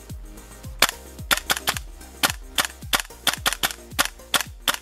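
GHK G5 gas blowback airsoft rifle firing on green gas: about fifteen sharp shots at an uneven, quick pace, each with the snap of the bolt cycling.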